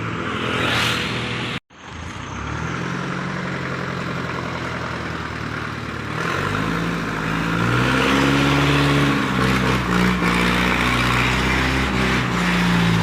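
A diesel engine driving a wood saw runs steadily. It grows louder and strains from about six seconds in as the blade cuts through the log. The sound drops out for a moment near the start.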